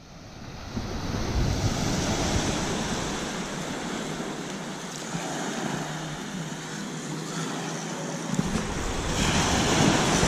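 Ocean surf washing onto the beach, with wind buffeting the microphone; the noise swells louder near the end.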